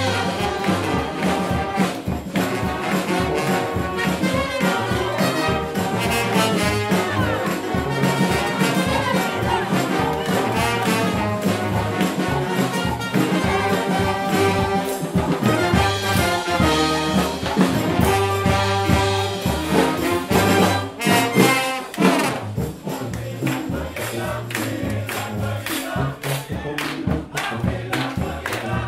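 Brass band playing funk live: sousaphone bass line with trombones, trumpets and saxophones over a drum kit. About twenty seconds in, the horns thin out and the drums come forward.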